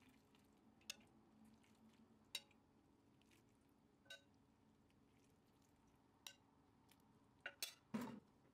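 Near silence with a few faint, scattered ticks and crackles, a small cluster near the end: hot syrup soaking into a tray of freshly baked baklava.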